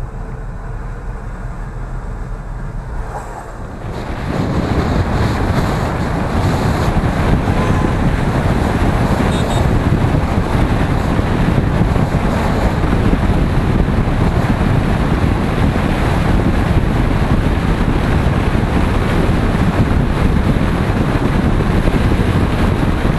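Moving car's road and wind noise, a steady rush on the microphone that jumps louder about four seconds in.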